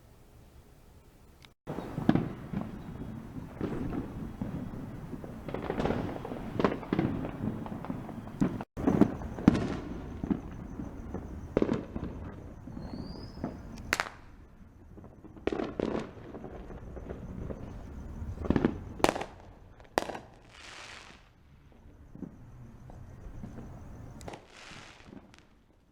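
Fireworks going off: after a second and a half of near quiet, a long run of irregular bangs and crackling bursts, some much louder than others.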